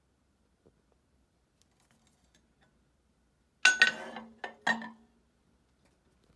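A thick steel motor mounting plate set down on the lathe's steel bed: a sharp metallic clank about three and a half seconds in, then two lighter clinks, each ringing briefly.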